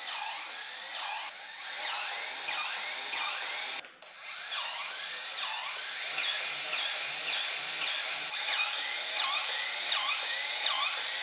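Cordless battery-powered grease gun running, a steady motor whine with a rhythmic pulse of about two to three pump strokes a second as it pushes grease into the tractor's loader fittings. It stops briefly about four seconds in, then starts again.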